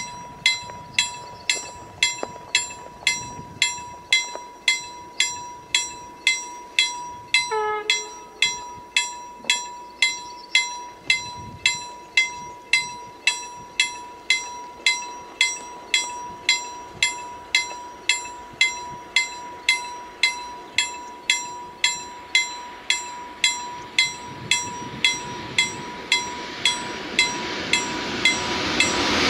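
A ZWUS KLD-4013 mechanical level-crossing bell strikes steadily, a little under two strokes a second, each ring dying away before the next: the warning that the crossing is closed. A brief falling tone comes about seven seconds in. Over the last few seconds the rumble of an approaching InterCity passenger train grows as it reaches the crossing.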